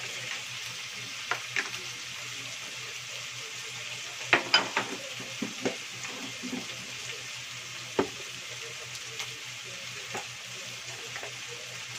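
Pork cubes with onion and garlic frying in a nonstick frying pan: a steady sizzle, with a few sharp clacks of the spatula against the pan, a cluster of them about four seconds in and one more near eight seconds.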